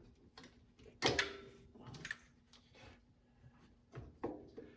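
A few sharp metal clunks and taps as a throttle body, with its bolts and gasket held on it, is handled and set into place on the engine; the loudest clunk comes about a second in, with smaller knocks near two and four seconds.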